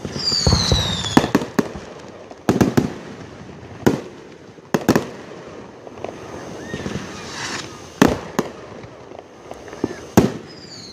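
Aerial fireworks going off in a display: a string of sharp bangs from shells bursting, several seconds apart and sometimes in quick clusters, with a whistling shell falling in pitch right at the start.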